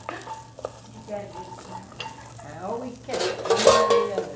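Vegetables sautéing in butter in a pot, stirred with a wooden spoon. About three seconds in, a loud metallic clatter and scrape as a metal pan is handled.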